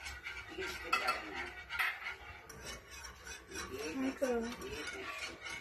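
A spoon, then a wire whisk, stirring yeast into warm milk in a metal saucepan: irregular scraping and clinking against the pan. About four seconds in, a brief whine that rises and falls joins it.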